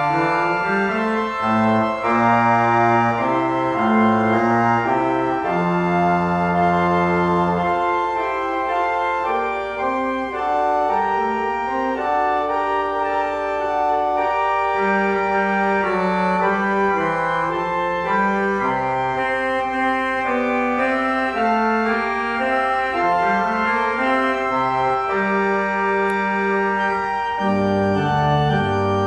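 Church organ playing a slow instrumental piece of sustained chords over a moving bass line, with one long low note held for a couple of seconds.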